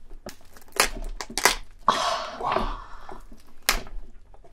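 Shell of a soy-sauce-marinated raw lobster being broken apart: sharp cracks about a second in, again half a second later and once near the end, with a longer crunching, crackling stretch in the middle.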